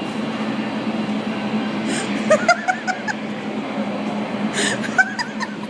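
Steady rushing wind from a hurricane simulator's blower, with a constant low hum under it. Short bursts of giggling laughter come over the wind about two seconds in and again near the end.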